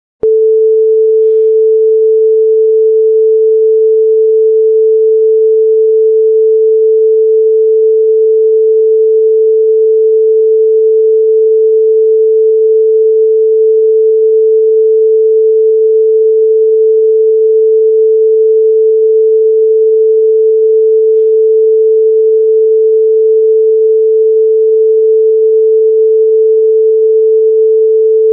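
Broadcast line-up tone: a single loud, steady pure tone held without change, the reference tone that runs with colour bars at the head of a programme tape.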